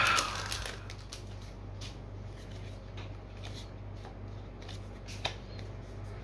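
A plastic booster-pack wrapper crinkles as it is crumpled by hand, dying away within the first second. Then Magic: The Gathering cards are leafed through and slid over one another, with soft card-on-card rustles and small snaps, one sharper snap about five seconds in.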